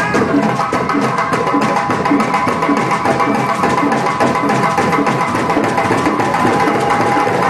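West African hand-drum ensemble, djembes among them, playing a fast, driving interlocking rhythm.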